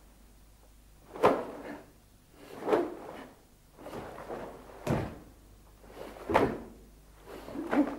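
Sharp snaps of a cotton karate gi and thuds of bare feet on a wooden floor as a karateka strikes and steps through a kata: four sharp sounds about a second and a half apart, the last two with a deeper thud, over a faint hum.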